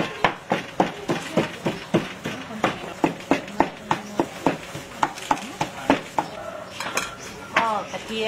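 Cleaver mincing raw fish on a thick wooden chopping block: steady, evenly spaced chops, about three a second.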